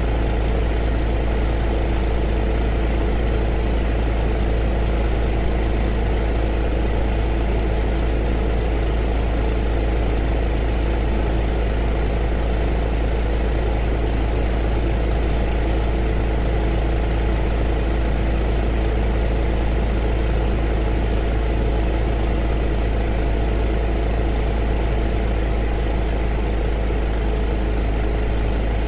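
Heater running steadily: a deep, constant hum with a few steady tones over an even hiss, without any change.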